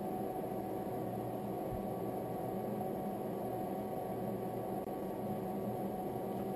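Steady hum and hiss of a home distillation rig running: a butane gas stove burning under a sealed kettle, with the small pump that circulates cold water through the glass condenser coil.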